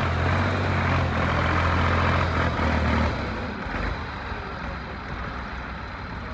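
1982 Massey Ferguson 240 tractor's three-cylinder diesel engine running loud and steady, then dropping to a quieter run about three seconds in.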